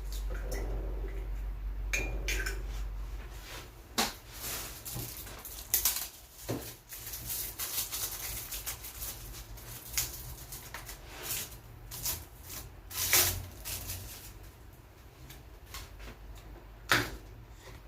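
Kitchen clatter: dishes and utensils knocking and clinking at irregular intervals, the sharpest knocks about four, ten, thirteen and seventeen seconds in. A low hum fades out a few seconds in.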